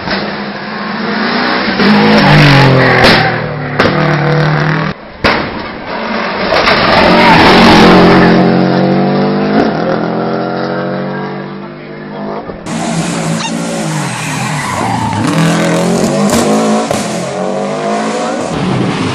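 Subaru Impreza rally car's flat-four engine revving hard as the car drives past at race speed, its pitch climbing and dropping repeatedly through gear changes and lifts, over several passes.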